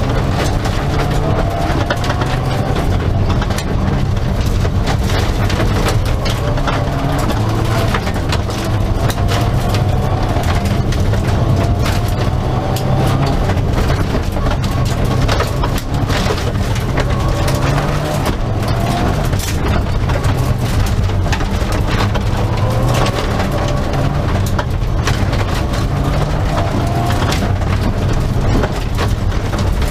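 Mitsubishi Lancer Evolution rally car's turbocharged four-cylinder engine, heard from inside the cabin at full stage pace. The revs rise and fall repeatedly through gear changes and corners, with gravel clattering against the underside.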